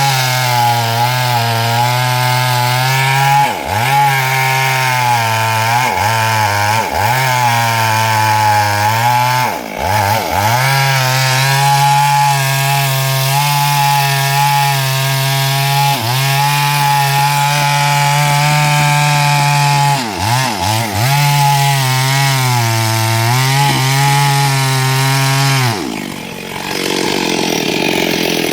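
Stihl MS382 two-stroke chainsaw cutting into wood at high revs, its engine note dipping briefly and picking back up every few seconds. Near the end the engine note falls away for a couple of seconds, then the saw revs again.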